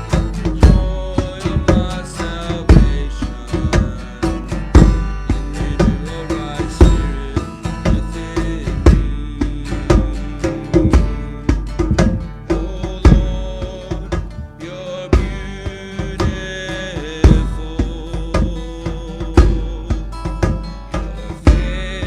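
Instrumental music with sustained pitched notes over a steady drum beat.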